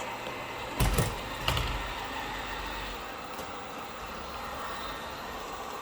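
Samsung Jet Bot+ robot vacuum running a cleaning and mapping pass, its suction motor and brush making a steady, loud whir. Two short thumps come about a second in and half a second later.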